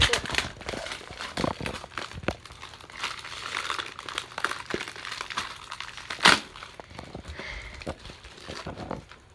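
Plastic packaging crinkling and rustling as it is handled and opened, with scattered small clicks and one sharper click about six seconds in.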